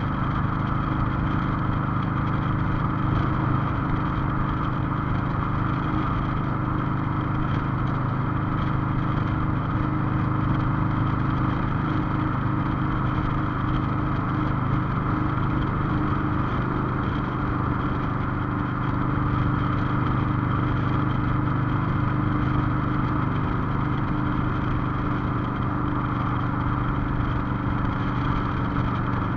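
Cruiser motorcycle engine running steadily at an even pitch while the bike is ridden along a city street.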